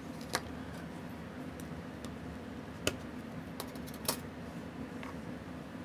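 A few irregular light clicks and taps of small metal tools, such as tweezers, being handled at a watchmaker's bench, the sharpest about a third of a second, three seconds and four seconds in, over a steady low hum.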